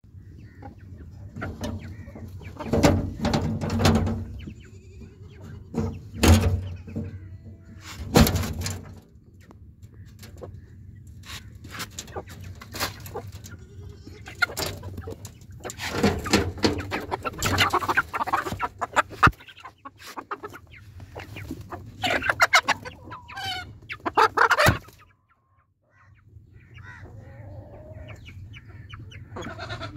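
A flock of chickens clucking. In the first half the loud metallic clanks and rattles of a corrugated-iron coop door and its rusty iron latch being worked open cut through the clucking.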